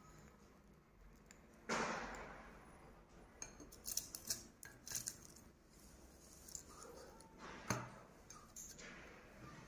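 Faint crisp clicks and crackles of taper candles being pushed into a glass bowl of dried potpourri petals and tapping the glass, with a sharper click near the end. About two seconds in, a short burst of soft noise fades away over about a second.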